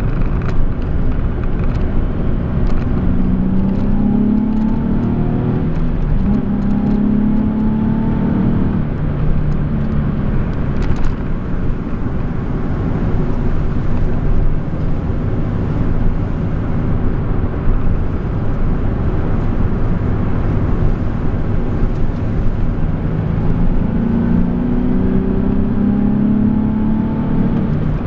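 Nissan 370Z's 3.7-litre V6 heard from inside the cabin, pulling hard twice with its pitch rising for several seconds each time, over a steady low rumble.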